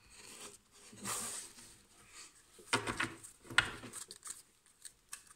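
A deck of cards being shuffled and handled by hand. A brushing rush of cards comes about a second in, then two quick bursts of flicking card clicks near three seconds and three and a half seconds.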